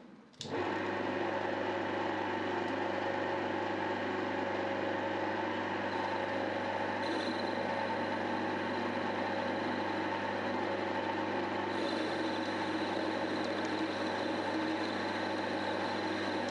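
Vintage metal lathe running steadily under power: motor hum and drive whine with several fixed tones, cutting in suddenly about half a second in. A higher tone joins about two-thirds of the way through.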